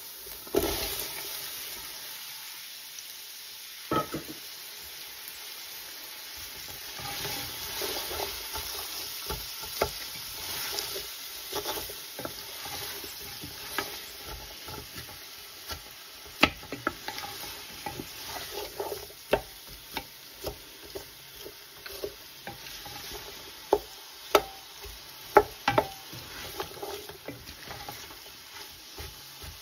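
Sliced white onions sizzling in hot oil in an aluminium pot, stirred with a wooden spoon that knocks and scrapes against the pot. There is one loud knock about half a second in, and the spoon knocks come more often in the second half.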